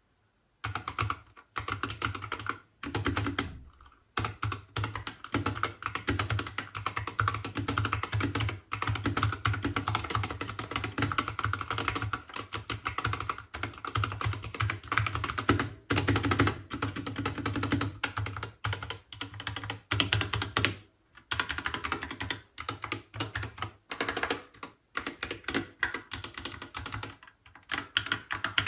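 Typing on a Drop + Lord of the Rings mechanical keyboard: a fast run of clacking keystrokes, broken by a few brief pauses.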